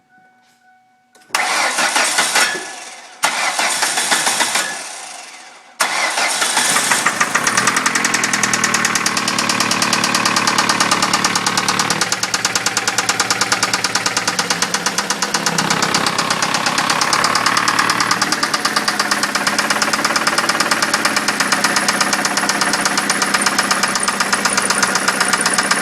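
2003 Ford Focus Zetec four-cylinder engine cranked over twice, catching about six seconds in. It then runs with a loud, fast, even knock, the bad engine rap or knock the owner is showing.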